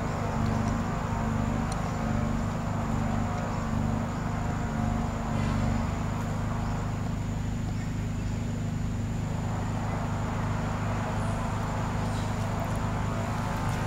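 Steady low drone of an engine running at a constant speed, with a few faint clicks over it.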